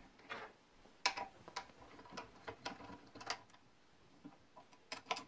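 Faint metallic clicks, roughly twice a second, as a hex key is turned and reseated in a screw head, tightening a screw in a bracket on an aluminium extrusion.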